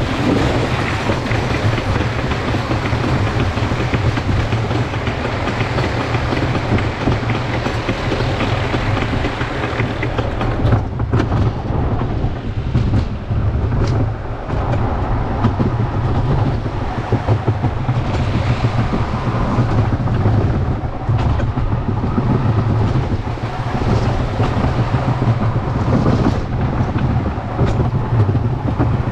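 Wild Mouse roller coaster car riding its track, heard from the car itself: it clatters up the chain lift and then rumbles through the turns, wheels on the rails in a steady loud rattle with sharper knocks.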